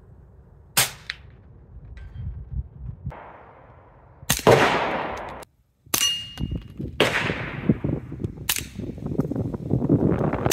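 Suppressed .22 LR shots through a Dead Air Mask HD rimfire suppressor, using subsonic CCI Standard Velocity ammunition: about six muted shots spaced one to a few seconds apart. A short high metallic ping follows one of the shots.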